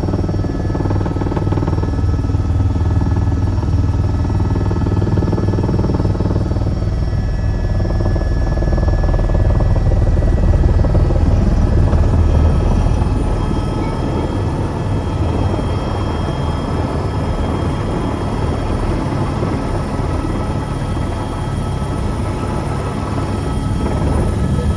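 AS 355 twin-turbine helicopter's rotors and turbines running steadily, heard from inside the cabin during the landing. The heavy rotor noise swells a little about ten seconds in, then eases slightly.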